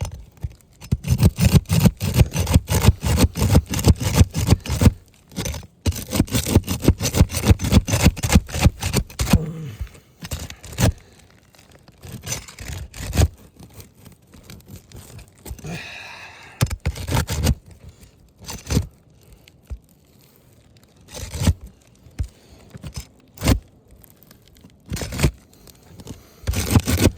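Asphalt roof shingles being pried and scraped loose from their sealant strips: a fast run of repeated scraping strokes, then slower, scattered scrapes and crackles. The seal holds so hard that the shingle mat tears rather than letting go, a sign the shingles are not repairable.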